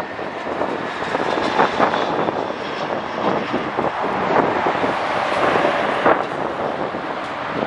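Airbus A319 airliner's jet engines at approach power as it comes in to land: a steady roar with a faint high whine.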